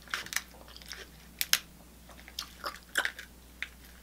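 King crab knuckle shell crackling and clicking in irregular sharp cracks as it is cut, the hard shell resisting the blades.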